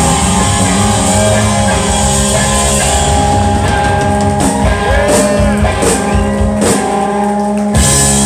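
A live rock trio of electric guitar, bass guitar and drums playing loud, sustained notes. In the second half about five separate cymbal crashes ring out, under a second apart.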